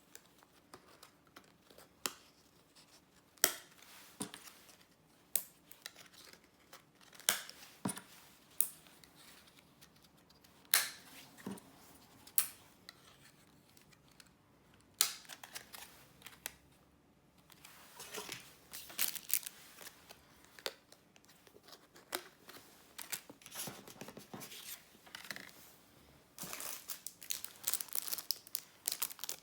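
Packaging being handled and torn open: scattered sharp clicks and short rustles, then a denser stretch of crinkling near the end.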